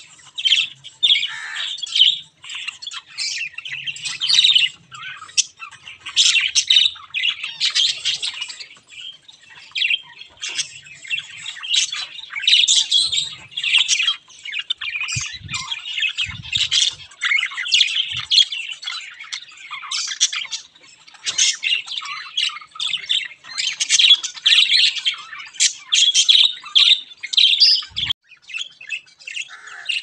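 A flock of caged Java sparrows, white and grey, chirping and twittering in short, rapid notes almost without pause. A few soft low thuds sound around the middle and near the end.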